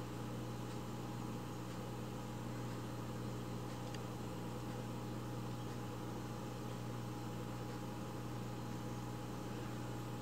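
Steady low hum over a constant hiss, like an appliance or fan running, with a couple of faint ticks.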